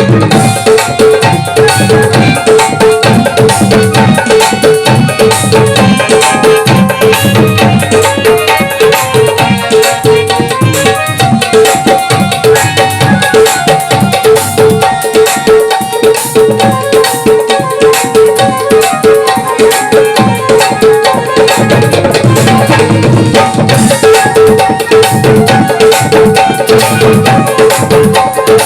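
Music driven by a fast, steady hand-drum rhythm, with a repeating pitched drum note over it.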